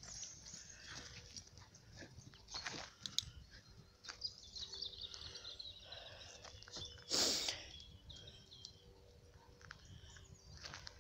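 A dog moving about on grass, with scattered rustles and small clicks and one short, loud rush of noise about seven seconds in.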